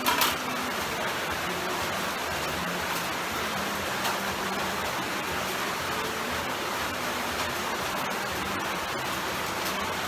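A steady rushing hiss at an even level, with a short louder burst right at the start.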